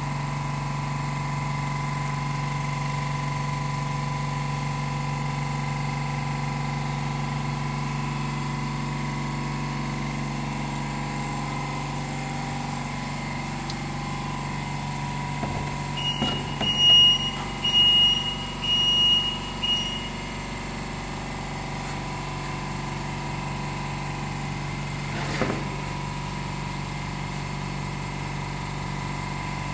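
Automatic ABS sidewall milling machine for snowboards running with a steady mechanical hum. About halfway through, a string of short high beeps sounds for about four seconds, and a single knock follows a few seconds later.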